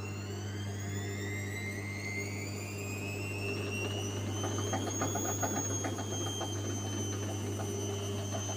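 Gorenje washing machine spinning up to 400 rpm, the motor whine rising in pitch and levelling off about halfway, over a steady hum. A rapid rattle comes in about four seconds in: the drum bearings are worn.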